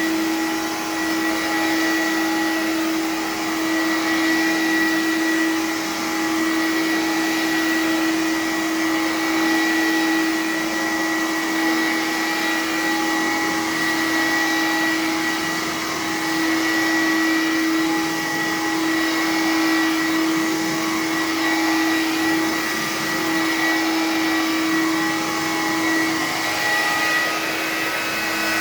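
Electrolux Discovery II two-motor upright vacuum running steadily, a constant motor hum with a high whine over the airflow.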